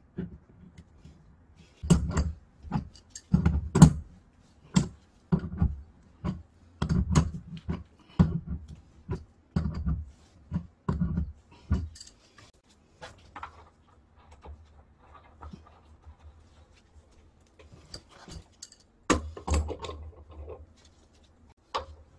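Irregular clicks, knocks and low rustling thumps of gloved hands handling brass water-pipe fittings and a ball valve. The sounds come thick for the first half, thin out, and pick up again near the end.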